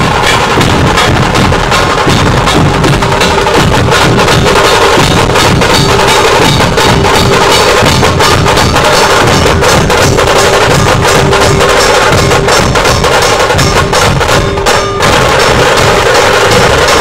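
Dhol-tasha troupe drumming: many large two-headed dhol barrel drums beaten with sticks, playing a loud, dense, fast rhythm together, with a steady ringing tone above the beats.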